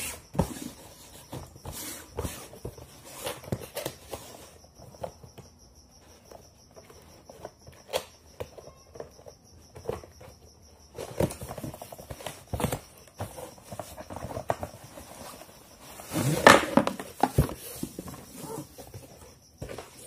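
Cardboard box being opened and handled, with scattered taps, scrapes and rustles. A louder rustle comes about sixteen seconds in, as the kettle in its plastic wrapping is pulled from the box.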